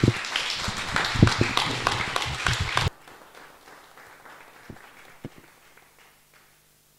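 Audience applauding, a dense patter of many hands clapping that cuts off suddenly about three seconds in, leaving faint room noise with a couple of small knocks.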